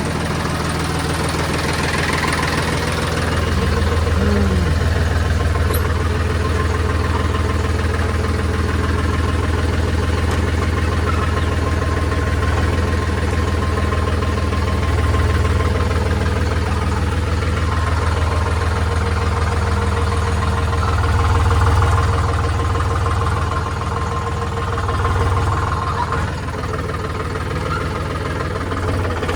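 An engine running steadily at idle-like speed, with a low hum that picks up a little about three seconds in and swells again briefly later on.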